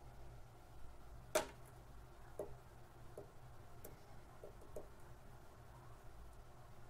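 Sequre mini battery spot welder firing a short pulse of about 7 ms in auto-weld mode, a single sharp snap about a second and a half in as the probes weld nickel strip to a lithium cell. A few fainter ticks follow, and another sharp click comes right at the end.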